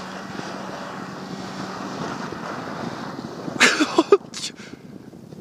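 A vehicle engine running steadily, with wind noise. About three and a half seconds in there is a brief loud burst, and then it turns quieter.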